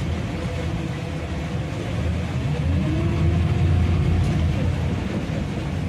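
Small fishing boat's engine running with a low rumble, revving up about two seconds in, then easing back.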